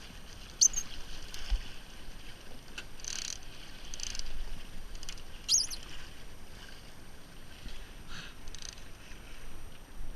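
Water sloshing and splashing around a fishing boat, in several short bursts, with two brief high squeaks.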